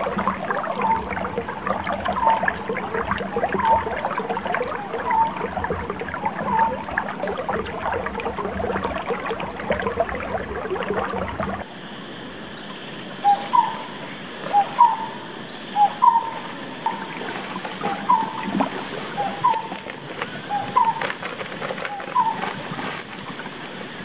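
Shallow forest stream running steadily, with a short rising chirp repeated about once a second. After an edit cut about halfway, the chirps are louder and a steady high-pitched insect drone joins in.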